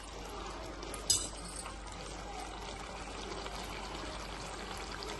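Chicken frying in its own oil in a pan, a steady sizzle, with one sharp clink about a second in.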